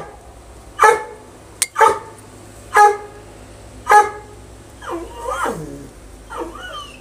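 A dog barking four times, about a second apart, followed by a run of softer calls that waver up and down in pitch, with one sharp click between the first barks.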